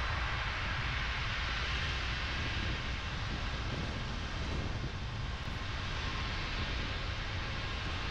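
Car driving on a rain-wet road: a steady hiss of tyres and rain over a low road rumble.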